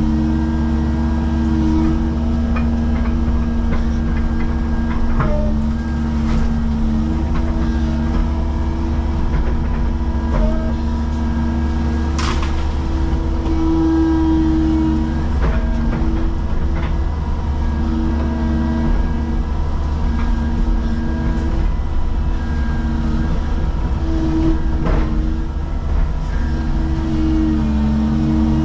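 Caterpillar excavator's diesel engine running steadily, heard from inside the cab, its tone rising and dipping as the hydraulics take load while the boom and thumb work. A few sharp cracks and knocks come through as brush is grabbed.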